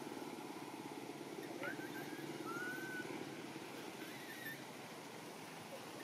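A steady low engine hum with a few faint, short high chirps over it, one a brief rising-and-falling whistle about halfway through.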